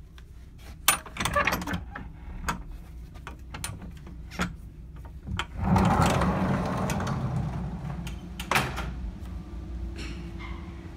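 Clicks and knocks of a cruise ship cabin's sliding balcony door, over a steady low rumble. About halfway through a loud rushing noise swells and slowly fades, with one more knock near the end of it.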